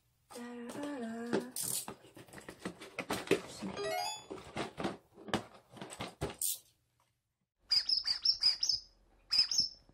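Cardboard box and plastic toy parts being handled and unpacked: a run of clicks and rustles. Near the end comes a quick series of short high chirps.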